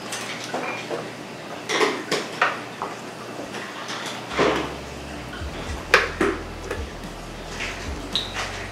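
Kitchen clatter: pans and metal utensils knocking and clinking in irregular separate strikes, the sharpest about six seconds in.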